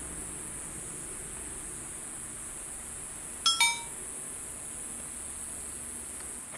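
Insects, likely crickets, chirring steadily in a high band, with two quick metallic clinks about halfway through that ring briefly.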